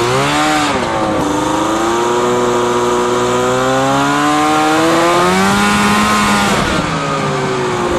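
Snowmobile engine running under changing throttle: its pitch dips sharply and recovers about half a second in, climbs slowly, then drops again near the end.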